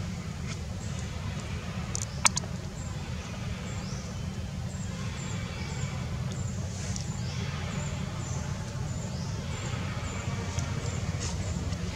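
Outdoor ambience: a steady low rumble with faint, repeated high chirps, and one sharp click about two seconds in.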